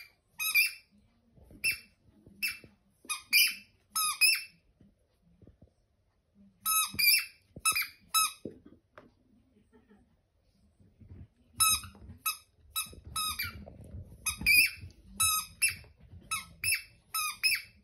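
A black Labrador chewing a squeaky toy ball, making it squeak again and again. The short, high squeaks come in quick runs, with two pauses of a few seconds between them.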